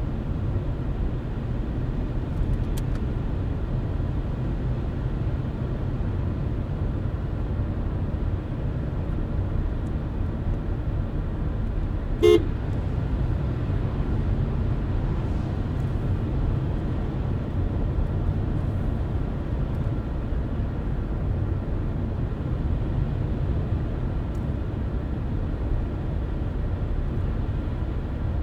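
A car driving at steady speed: a constant low road and engine rumble. About twelve seconds in, one short horn-like beep sounds.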